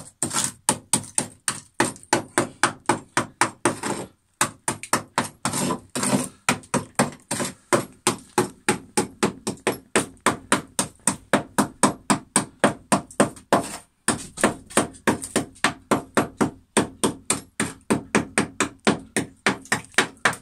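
Small hammer striking rusted steel hull plating in quick repeated blows, about three a second, chipping at the rust scale. There are short pauses about four seconds and fourteen seconds in.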